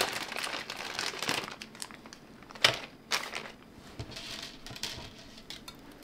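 Small plastic bag crinkling and rustling as a hand fishes a short Teflon tube out of it, with a couple of sharper clicks near the middle.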